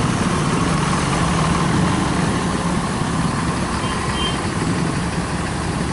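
Tour bus engine running steadily.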